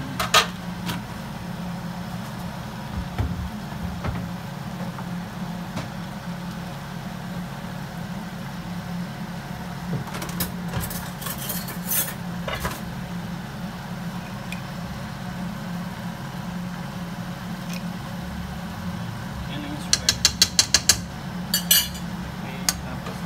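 Metal spatula and utensils clicking and tapping against a cooking pan now and then over a steady low hum, with a quick, even run of sharp clicks about twenty seconds in.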